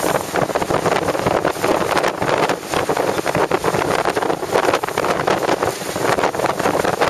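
Wind buffeting the microphone aboard a moving motorboat, a constant gusty rush over the boat's engine and the hull running through choppy water.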